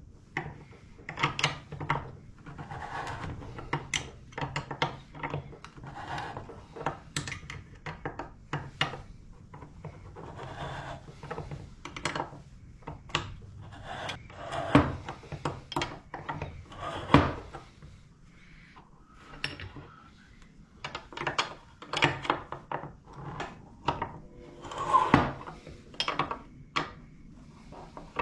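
Hand tools and metal suspension parts being handled during a motorcycle rear suspension service: irregular clicks, knocks and rubbing or scraping, with a few louder knocks.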